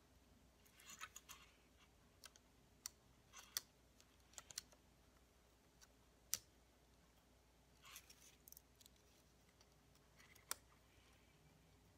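Faint clicks and light scratching of a small screwdriver driving tiny screws into a toy drone's plastic base, with the plastic body handled between turns. A few sharper clicks stand out, the loudest about six seconds in.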